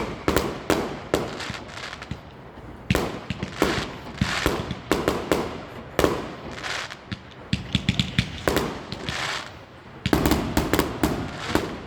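Fireworks going off: a string of sharp bangs and crackling bursts in clusters every second or two, with a dense rapid volley about ten seconds in.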